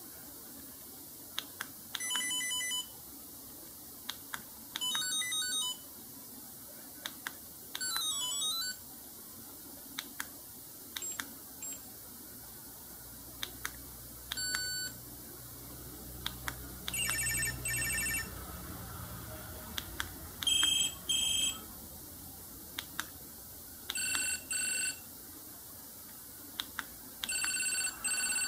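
BlackBerry 7230 cell phone playing short previews of its built-in ringtones one after another: about eight brief bursts of high, thin electronic tones, each a different tune. Short sharp clicks come in between the tunes.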